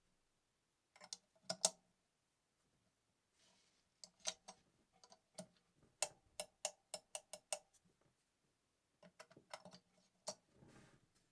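Small sharp clicks and light knocks of hands working the metal parts of a vintage Gritzner VS-R sewing machine while threading it, coming in short clusters with a run of evenly spaced clicks in the middle and a soft rustle near the end.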